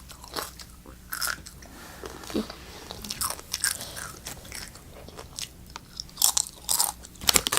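Crunching and chewing Doritos tortilla chips close to the microphone: a run of irregular crunches, louder near the end.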